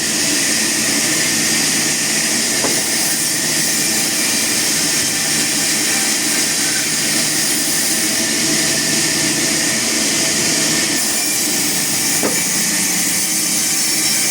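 Wood-milling machinery running steadily: a continuous, hissing machine noise without breaks.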